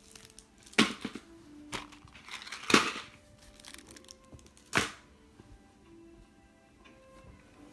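Plastic candy bar wrappers crinkling and crackling as a small child handles wrapped chocolate bars, in a few sharp bursts, the loudest about three seconds in. Faint background music underneath.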